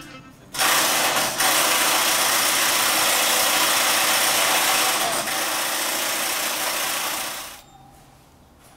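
Impact wrench running in one long burst of about seven seconds, with two brief dips, working a bolt on the underside of a car.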